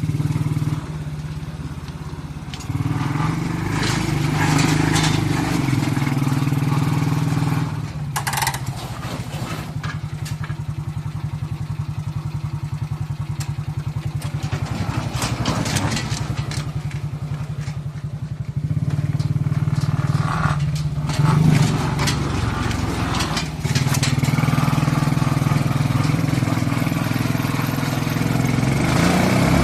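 Suzuki 125cc motorcycle engine powering a four-wheeled mini truck, running steadily and changing speed several times: it picks up about three seconds in, eases off around eight seconds, and picks up again around nineteen and twenty-four seconds.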